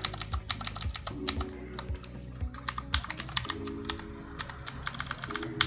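Rapid typing on a computer keyboard: many quick, irregular key clicks.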